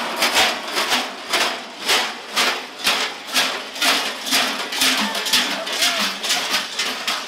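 Large bells worn on the waists of fur-costumed Klaubauf figures clanging in a steady rhythm, about two strokes a second, as the wearers move.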